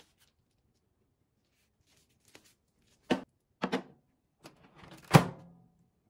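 Knocks as a ceramic plate is set into a Sharp microwave oven, then the oven door shut with a thunk about five seconds in, the loudest sound.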